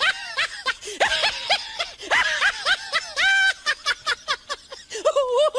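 High-pitched giggling laughter: a fast run of short, squeaky notes, each rising and falling.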